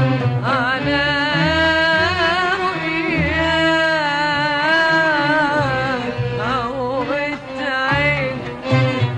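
Arabic music: an ornamented, wavering melody held over a repeating low drum beat.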